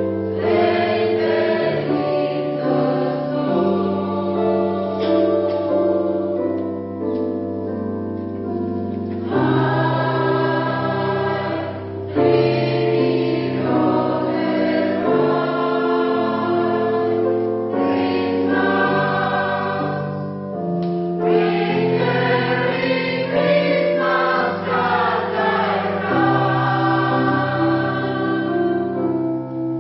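Polyphonic choir singing a Christmas piece in several parts, with held chords that change every second or two.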